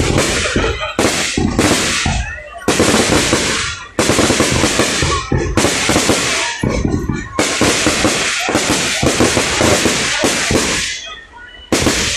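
Fireworks display: aerial shells bursting in rapid succession, loud booms and crackle following one on another almost without a break, with a short lull near the end.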